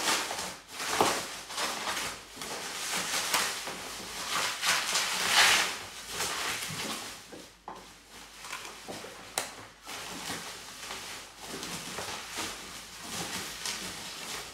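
Plastic bubble wrap and a plastic bag rustling and crinkling as a parcel is unwrapped by hand, with many small crackles and the loudest rustle about five seconds in.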